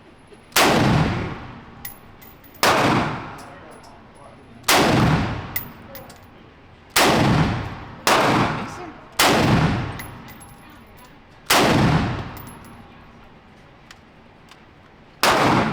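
Gunshots fired one at a time, eight in all at uneven intervals, each followed by a long fading echo.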